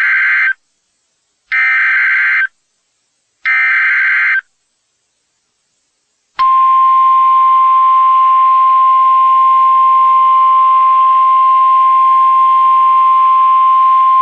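NOAA Weather Radio emergency alert: three short bursts of buzzy digital header data about a second apart, then the warning alarm tone, one long steady high tone starting about six seconds in. The sequence announces a tornado warning broadcast.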